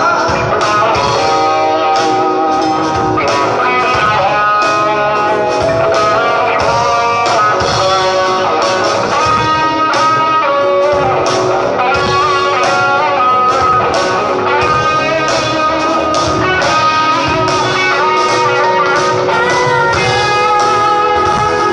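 Live band playing an instrumental passage led by electric guitar, with a steady drum beat underneath.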